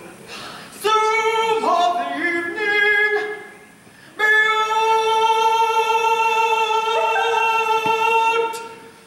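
A single voice singing without accompaniment: a few short notes stepping up and down, then one long high note held steady for about four seconds, stopping near the end.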